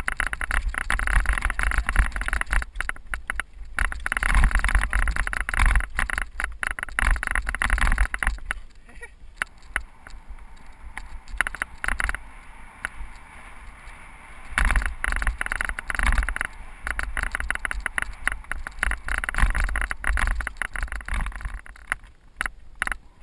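Cyclocross bike rattling and clattering as it descends rough rocky dirt singletrack, with tyre noise and wind rumble on the microphone. It eases off for a few seconds in the middle, then grows loud again.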